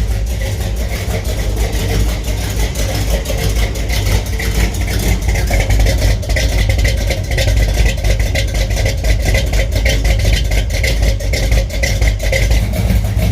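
1975 Chevy K5 Blazer engine idling steadily through its newly welded 3-inch aluminized exhaust with stainless tips.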